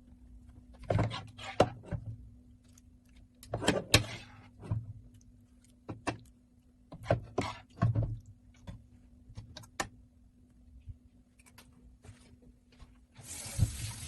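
Kitchen handling sounds: a series of knocks and clatters, as of utensils and dishes being set down and moved, over a steady low hum. A short rushing hiss comes in near the end.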